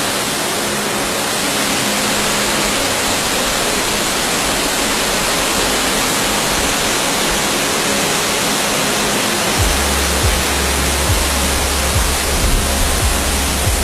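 Waterfall rushing, a steady, full roar of falling water. About ten seconds in, a deep low bass joins it.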